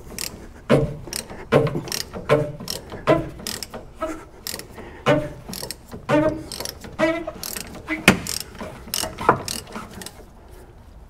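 Hand ratchet with a 28 mm socket clicking through a run of short swings as it unscrews the plastic cap of a Ram 6.7 Cummins rear fuel filter housing. The clicks come about one or two a second and stop shortly before the end.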